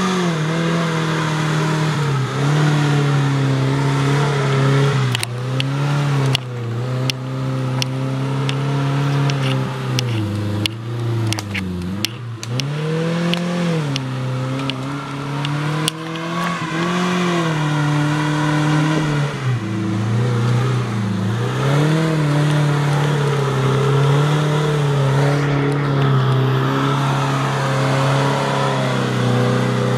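Suzuki Jimny SJ410's small four-cylinder engine running hard off-road, its revs repeatedly dropping and climbing as the throttle is worked. Sharp knocks and clicks come thick and fast for about ten seconds in the middle.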